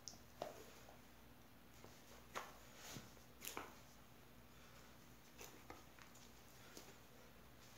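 Faint, scattered soft squishes and taps of a bare foot treading a mound of white porcelain clay on a bat, the clearest in the first four seconds; otherwise near silence with a low hum.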